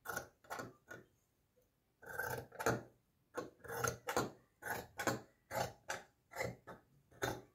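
Scissors cutting through lining fabric, a steady run of snips about two a second, with a short pause about a second in.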